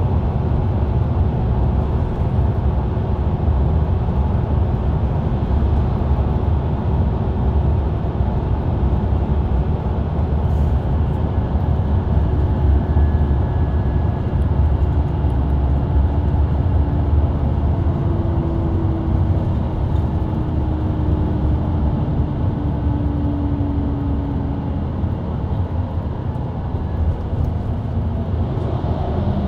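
Mercedes-Benz Citaro C2 LE city bus under way at steady speed, heard from the rear seats near the engine: a continuous deep engine drone with tyre and road rumble. A faint hum slowly sinks in pitch around the middle.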